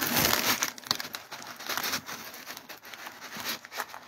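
Plastic bag crinkling and rustling in irregular crackles as it is handled.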